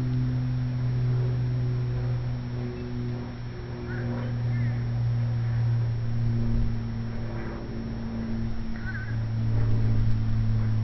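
A steady low mechanical drone that holds one pitch throughout, with a few short high chirps over it about four and nine seconds in.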